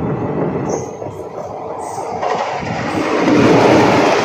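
Passenger train running, with wheel and rail noise heard from an open coach window. About two seconds in, a passenger train on the adjacent track comes alongside and passes close by, and the noise grows louder.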